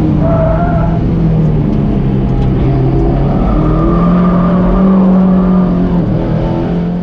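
Mazda MX-5's four-cylinder engine, fitted with a modified HKS intake, heard from inside the cabin while driven hard on track. The revs dip around two seconds in, then climb from about three and a half seconds and hold high as the car powers through the corner.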